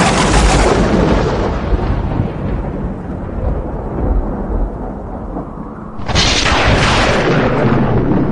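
Two loud rumbling booms laid on the soundtrack as a dramatic effect: one hits right at the start and dies away over several seconds, a second hits about six seconds in.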